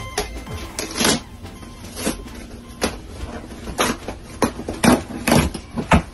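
A large cardboard shipping box opened by hand: irregular rustles, scrapes and knocks of cardboard flaps and packing paper, the loudest near the end.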